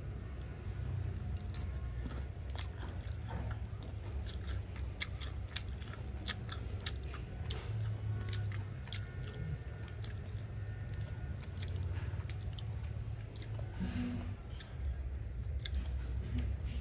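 Someone biting and chewing mango salad with dried fish up close: many sharp, irregular crunches over a steady low rumble.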